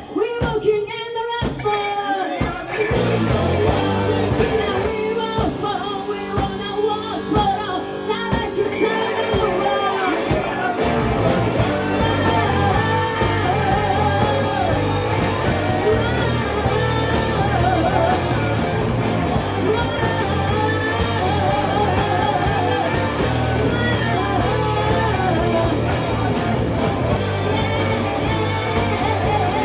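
Live rock band playing with a singer and electric guitar. The first couple of seconds are sparse, then the full band comes in about three seconds in and plays on under the sung vocal.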